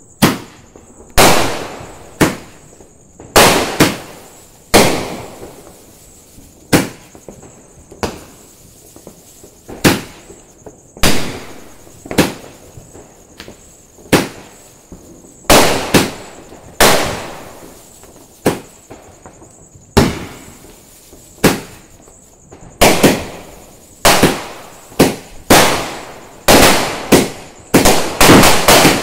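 Aerial fireworks going off close by: a sharp bang every second or two, each dying away over about a second. The bangs quicken into a rapid, almost continuous volley in the last few seconds.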